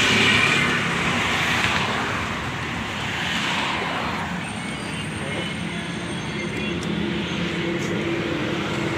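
Road traffic noise from vehicles passing on a nearby road, swelling as louder vehicles go by near the start and again about three and a half seconds in.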